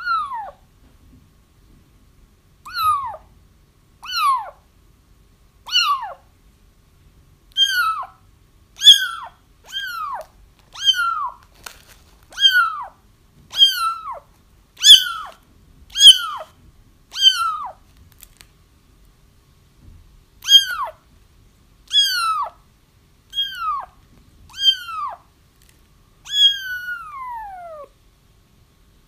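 Kittens crying: a run of high, downward-sliding meows, about one a second, with a short pause past the middle and a longer, drawn-out cry near the end. These are the cries young kittens make to call their mother.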